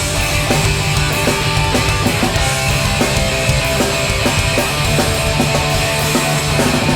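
A hardcore punk band playing loud live with guitars and drums, with no singing.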